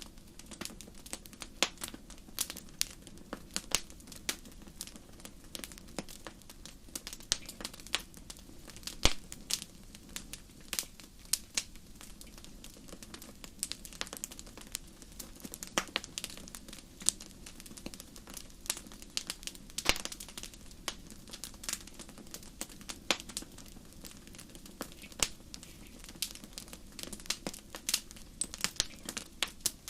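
Fire crackling: irregular sharp pops and snaps, a few much louder than the rest, over a steady low background.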